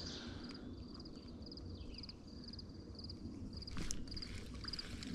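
An insect chirping steadily, short high pulsed chirps about twice a second, over a faint low background rumble. A single sharp click about four seconds in.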